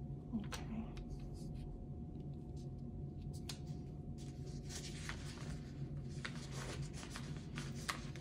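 Fingers handling a paper sticker on a planner page: a few light taps, then soft rubbing and rustling from about halfway as it is pressed down, over a steady low hum.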